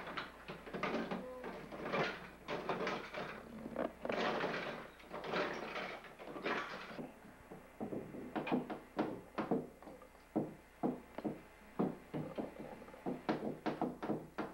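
Plastic toys clattering and rattling as a toddler rummages through a clear plastic storage bin. The handling turns into a rapid run of sharp knocks and clicks about halfway through.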